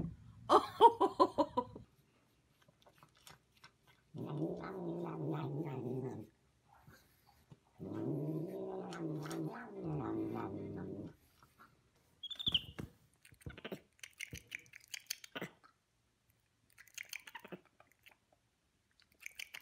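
A cat crouched over its food bowl, growling while it eats: two long, low, yowling growls of two to three seconds each, the second rising and falling in pitch. Near the start there is a short loud pitched call, and in the last seconds a capuchin monkey makes short squeaks and clicks.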